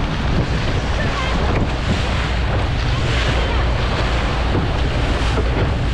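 Fishing boat under way, its engine running as a steady low drone, with water rushing past the hull and wind buffeting the microphone.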